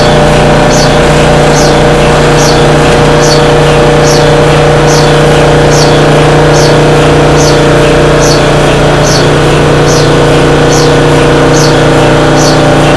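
Large electric motor spinning an aluminum billet inside the superconducting DC magnet of an induction heater: a loud, steady machine hum with several fixed tones. A short high hiss repeats about every 0.8 seconds.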